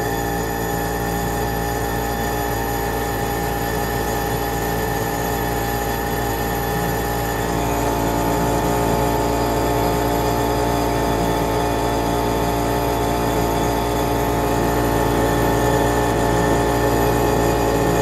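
1986 Lennox G14 Pulse gas furnace running: the pulse combustion chamber's steady drone from about 60 small gas-air ignitions a second, with the circulating blower fan running as well. It grows slightly louder over the stretch.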